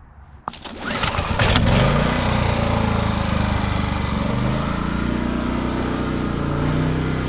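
Champion 4000-watt digital hybrid inverter generator being restarted after an overload shutdown. A few clicks, then the engine catches about a second in and runs steadily.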